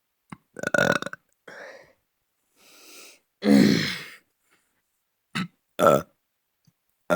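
A person burping over and over: about five separate burps with short gaps between, the longest and loudest about three and a half seconds in, with fainter breathy noises in between.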